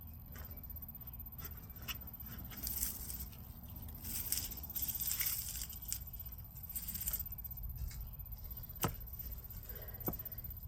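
Hands digging through loose garden soil to feel out potatoes: scraping and rustling of dirt in several spells, with a couple of sharp clicks of stones near the end.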